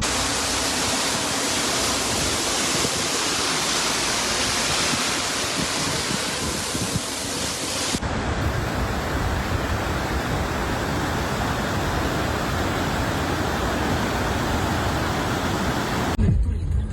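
Loud, steady rush of fast-flowing floodwater, in two stretches that change abruptly about halfway through and cut off near the end.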